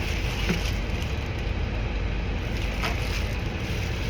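Steady low rumbling background noise, with two faint clicks about half a second and three seconds in.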